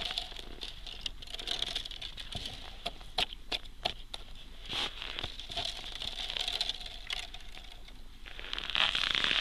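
Scattered clicks and scrapes of a small blade chipping into thin new ice to set a marker branch, with the frosty ice surface crunching under knees and boots. The crunching grows louder near the end.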